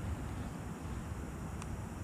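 Steady outdoor background noise with a low, uneven wind rumble on the microphone, and one faint short click about one and a half seconds in.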